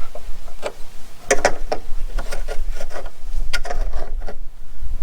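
Irregular clicks, knocks and rubbing of parts being handled, over a low rumble.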